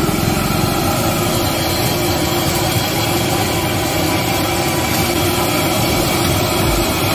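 Momos deep-frying in a kadhai of hot oil: a steady sizzle, with a low rumble underneath.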